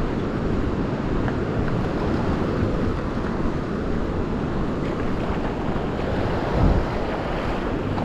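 Sea surf washing onto the beach, with wind buffeting the microphone; a brief louder low rumble of wind comes near the end.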